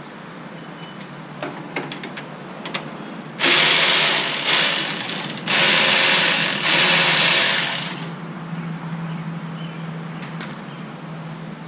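Power ratchet run in four quick bursts, about three seconds in, spinning off the 13 mm bolts that hold the A/C lines, with a few light tool clicks before it.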